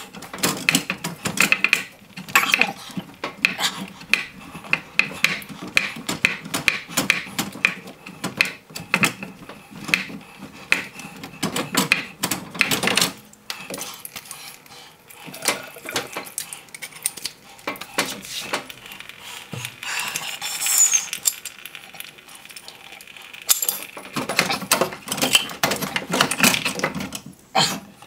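Metal plumbing parts clinking and scraping as hands clean and fit water pipe and fittings: dense, irregular clicks and scrapes, thinner through the middle and busy again near the end.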